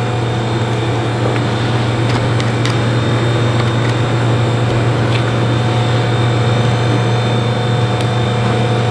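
Steady mechanical hum with a strong low drone and several constant tones above it, like a ventilation or refrigeration unit running. A few faint light clicks sound over it.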